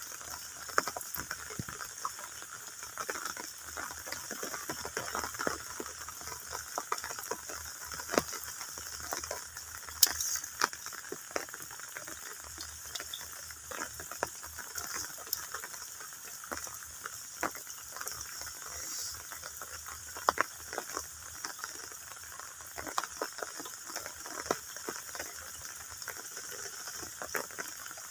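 Shallow water splashing and sloshing in many small, irregular splashes and drips, over a steady faint hiss.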